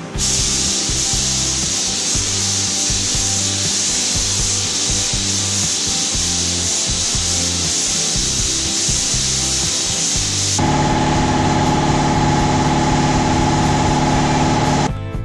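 Gravity-feed paint spray gun hissing steadily as it sprays automotive paint onto a truck body. About ten seconds in the sound cuts to a louder, steady hum under the hiss, which stops near the end.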